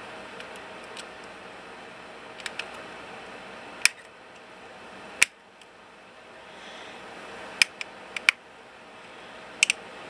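Small knife blade prying at the edge of a metal RF shield can on a WiFi card's circuit board: sharp metallic clicks, about ten in all and some in quick pairs, as the blade catches and slips on the cover's rim, over a steady faint hiss.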